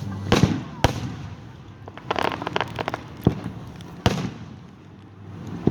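Fireworks bursting: a few sharp booms, a quick run of crackling about two seconds in, then a loud boom about four seconds in.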